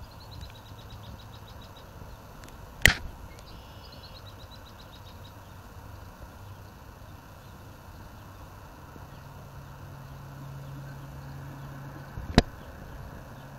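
Outdoor lakeside background: a low steady hum of traffic that swells slightly about two-thirds of the way through, with a small bird's quick trill of evenly spaced notes twice near the start. Two sharp clicks, the loudest sounds, come about three seconds in and near the end.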